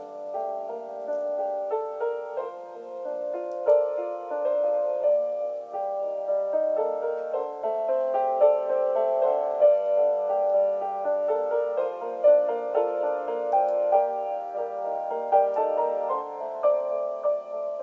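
Soft background piano music, a gentle melody of many quickly played notes.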